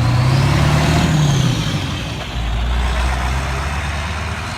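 Straight-piped 7.3 L Powerstroke V8 turbo diesel, with no muffler or catalytic converters, revving up and settling back to a steady run. A high turbo whistle rises and falls with the revs.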